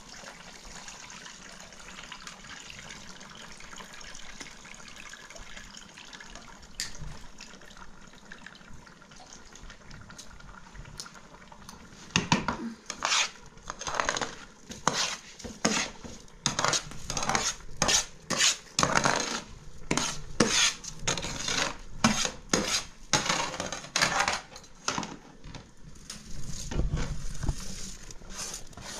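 Metal spoon scraping and clinking against an aluminium tray as raw rice is pushed off it into a pot of stew: a quick, uneven run of scrapes and knocks of metal on metal starting about halfway through. Before that only a steady faint hiss.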